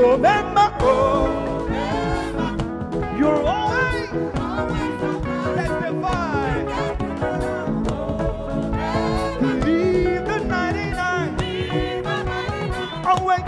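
Live praise-and-worship music: a band playing with a singer's voice gliding and running over it.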